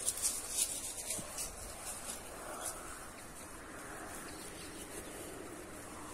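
Light rustling and quick clicks of movement through grass in the first couple of seconds, then a faint, even outdoor background.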